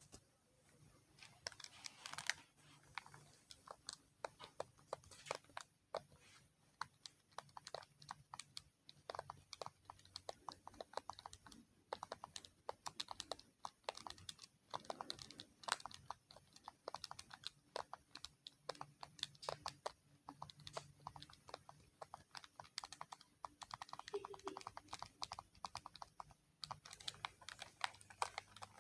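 ASMR tapping: quick, light taps and clicks on objects, irregular and several a second, with brief gaps now and then.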